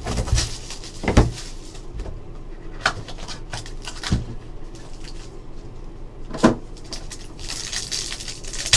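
Hands opening a cardboard trading-card box, with a few sharp knocks and cardboard handling sounds, then a foil card pack crinkling near the end.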